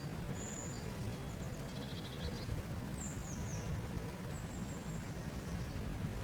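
Small songbirds calling: several short high, thin whistles, a brief chattering trill about two seconds in and a few quick falling notes, over a steady low rumble.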